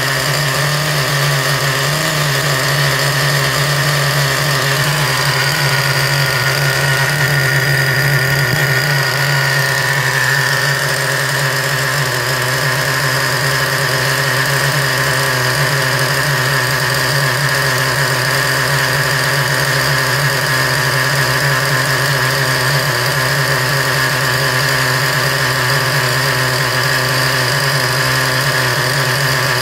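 Traxxas Revo 3.3's two-stroke nitro glow engine idling steadily, freshly rebuilt with a replacement connecting rod; the owner suspects it is running rich.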